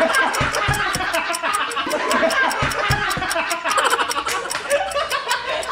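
A group of people laughing hard together, several voices at once. Music with a fast, steady beat plays underneath.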